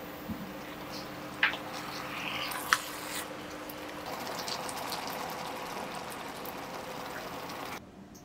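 Fish sauce glaze simmering in a pan around a mackerel steak, a steady bubbling sizzle, with two sharp clicks of chopsticks against the pan in the first three seconds. The simmering stops abruptly near the end.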